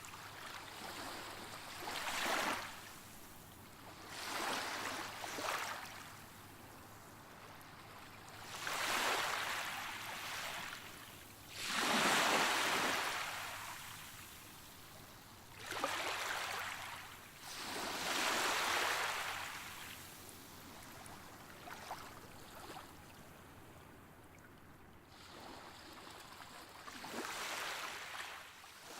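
Waves washing in on a shore: swells of surf rise and fade every few seconds.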